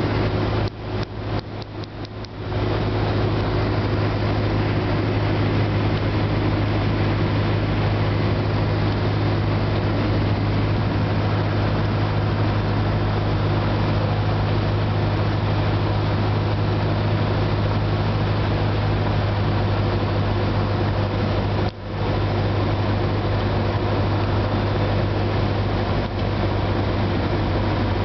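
Cessna 172 Skyhawk's piston engine and propeller droning steadily in the cockpit on final approach, with a strong low hum. The sound dips briefly several times about a second in and once near the end.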